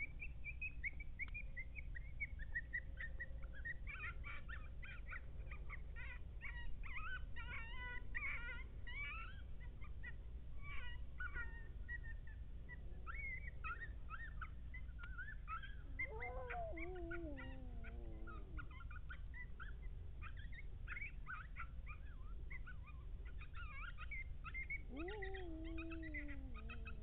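A group of coyotes yipping and howling. Rapid high yips and warbling calls run throughout, with two long howls that fall in pitch, one about two-thirds of the way through and one near the end.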